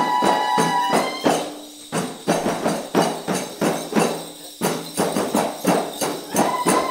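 Wedding zaffa music: hand drums and tambourines beating a steady rhythm. A held high note sounds over the beat at the start, stops about a second in, and returns near the end.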